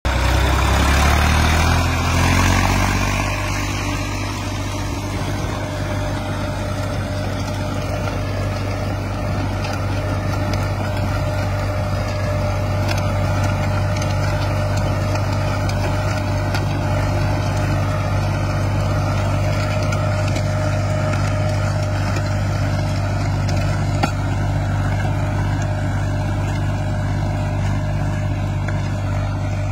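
A tractor's diesel engine working under load as it pulls a disc plough through dry soil. In the first few seconds it rises in pitch as it picks up speed, then it runs at a steady pitch.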